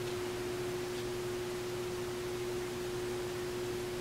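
A steady hum at one unchanging pitch, with a fainter lower hum and a faint hiss beneath it. No other sound stands out.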